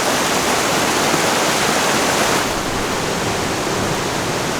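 Waterfall pouring steadily, a dense, even rush of falling water.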